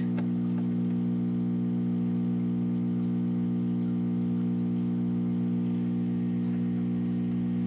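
Steady electrical mains hum with a buzzy stack of overtones and faint hiss, unchanging throughout.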